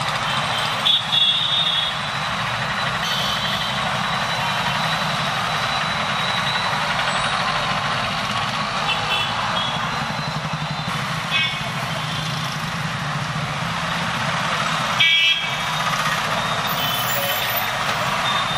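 Street traffic: auto-rickshaw, motorbike and bus engines running as they pass, with several short horn toots, the loudest about fifteen seconds in.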